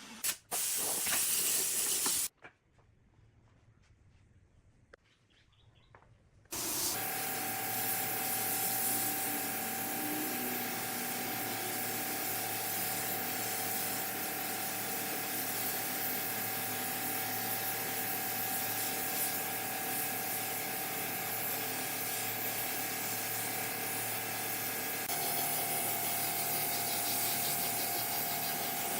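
Steady machine hiss with a constant hum under it. It starts about six seconds in, after a short burst of noise and a near-quiet pause.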